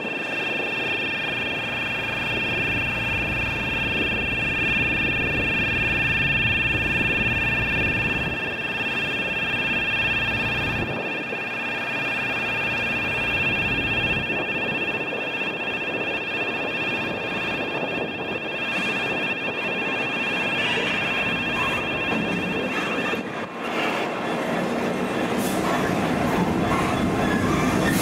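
A level crossing warning alarm sounding in steady high tones, a poor-sounding single alarm at a crossing whose road lights are faulting; it stops about 23 seconds in. Then a pair of Class 66 diesel locomotives runs up and across, engines running and wheels on the rails.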